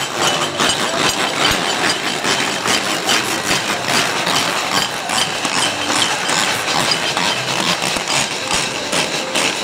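Many washboards scraped at once by a crowd of diners: a dense, continuous rasping clatter of many short strokes.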